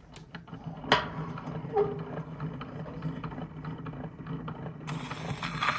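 Antique horn gramophone being set to play: clicks and knocks as the reproducer arm is handled, with a sharp click about a second in, over the low hum of the spinning turntable. About five seconds in, the needle settles into the groove of the 78 rpm record and surface hiss and crackle begins.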